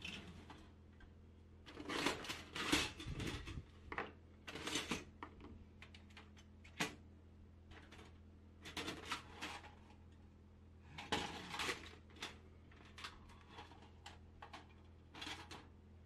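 Thin sheet-steel panels of a folding mini charcoal stove being moved and folded by hand: irregular metallic clicks, taps and scrapes in several short bouts.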